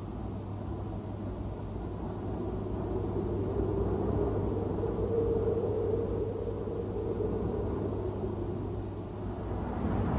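Steady low drone of an aircraft in flight: a constant engine hum under a rushing noise that swells slightly midway.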